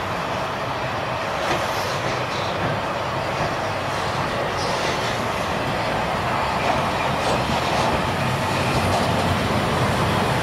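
Unrebuilt Bulleid Battle of Britain class three-cylinder steam locomotive running tender-first through a station, its sound growing slowly louder as it approaches.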